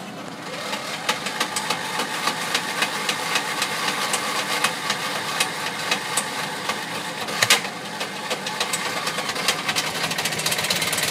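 Small engine of an old riding lawn mower running with a rapid, knocking clatter, brought back to life after months of not working.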